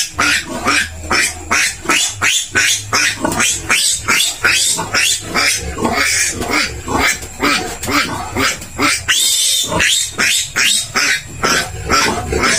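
A newborn piglet squeals loudly and repeatedly while it is restrained for an iron injection and tail docking. The squeals are short and come two or three a second, with a longer, higher squeal about nine seconds in.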